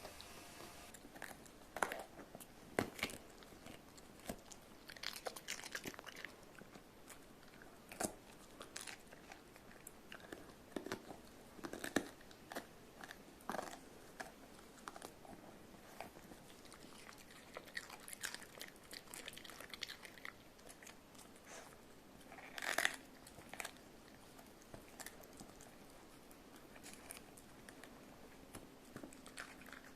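Small Pekingese–Maltese mix dog biting and chewing green pepper: irregular crunches with short pauses between them.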